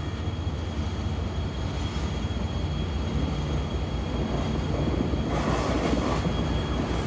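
Passenger train rolling past close by: a steady rumble of wheels on rails, with a brighter rushing hiss joining about five seconds in.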